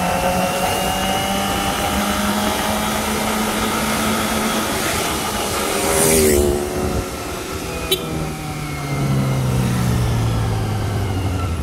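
Kawasaki Ninja ZX-25R's 250 cc inline-four running at a steady cruise, with wind noise on the helmet mic, its engine note falling in pitch over the last few seconds as the bike slows. About 6 s in, a motorcycle passes going the other way, its sound swelling and dropping in pitch as it goes by. There is a single sharp click near 8 s.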